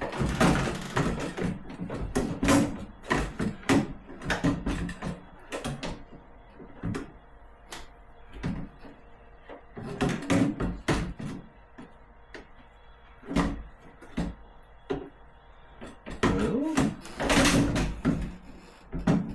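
Irregular knocks, clicks and rattles of an ice maker unit being handled and fitted against its mounting screws inside a fridge's freezer compartment, with a busy cluster near the start and another near the end.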